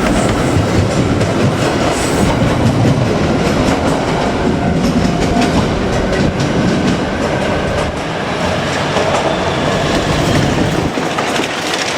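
JR Kyushu 817-series electric train, two two-car sets coupled, running past close by, its wheels clicking repeatedly over the rail joints.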